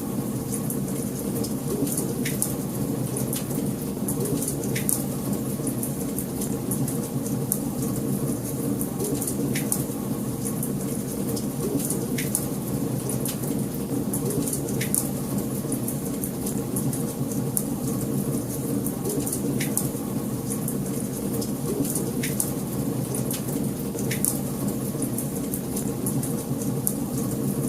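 Wood fire burning in a fireplace: a steady low rush of flames with frequent sharp crackles and a louder pop every couple of seconds.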